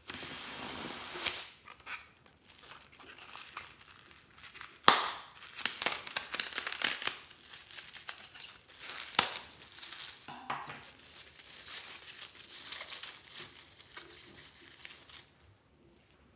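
A rubber balloon filled with foam beads being cut open with scissors and squeezed out: a short rush of hiss at the start, then irregular crinkling and crackling with a few sharp clicks as the beads spill out. It stops about a second before the end.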